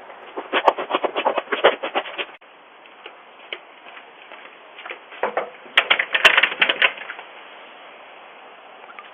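Quick, close-set clicking in two runs of about two seconds each, over a faint steady hiss.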